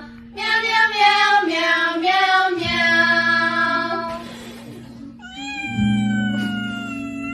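A voice sings a tune in "meow"s over backing music. About four seconds in, a short breath blows out candles, then a cat gives one long meow that falls slightly in pitch.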